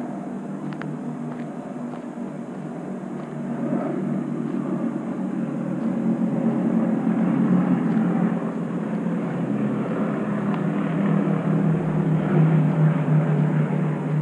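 A low, steady engine drone that gets louder about four seconds in and stays loud.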